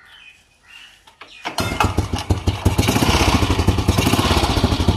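Royal Enfield Bullet 350 Electra 5-speed single-cylinder engine starting about one and a half seconds in, then running with a loud, rapid exhaust beat. It exhausts through the stock silencer with its internal mesh removed, so it flows freely.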